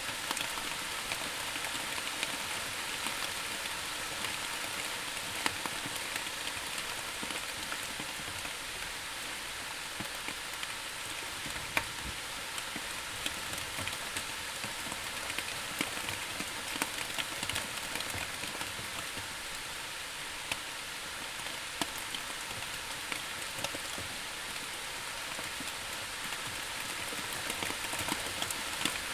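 Steady rain falling and pattering on a surface, with scattered individual drops ticking through it.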